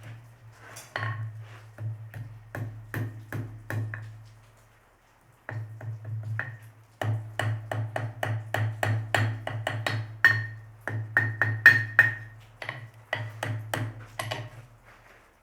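Hand hammer striking steel on an anvil in quick runs of blows, each with a bright ring. There is a brief pause about a third of the way in, then a faster stretch of about four blows a second.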